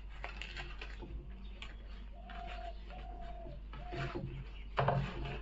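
Dry leaf wrapping crinkling and crackling as hands pull the layers apart, with a few short, steady, low cooing calls like a pigeon's partway through.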